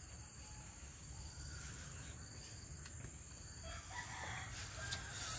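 A rooster crowing faintly, over a steady high-pitched drone, with a sharp click near the end.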